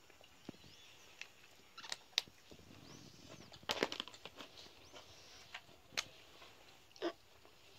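Faint scattered clicks, taps and short rustles of a child handling whiteboard markers at a tabletop whiteboard.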